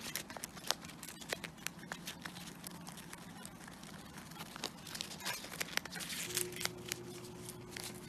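Rabbit chewing and tearing a crisp cabbage leaf: rapid, irregular small crunches and clicks.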